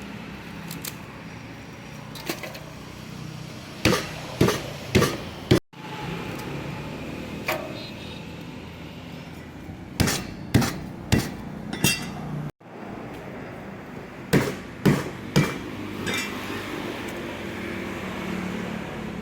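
Three quick runs of four or five sharp knocks, a utensil striking a hard surface during food preparation, over a steady background noise. The sound cuts out abruptly twice.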